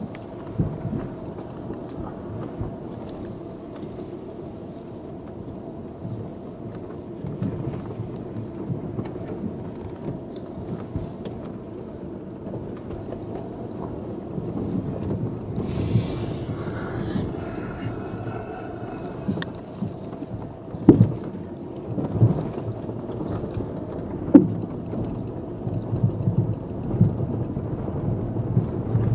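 Car interior sound while driving slowly over a rough, potholed dirt road: steady engine and tyre rumble, with suspension knocks and thumps as the wheels drop into ruts and holes, growing more frequent in the second half, with two sharp loud thumps.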